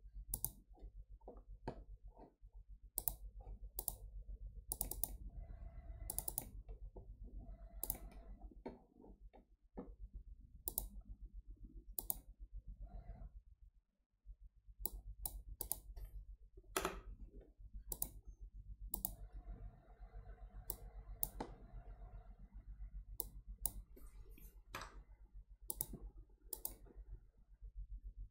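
Computer mouse clicks and keyboard keystrokes, irregular and sharp, over a faint low hum.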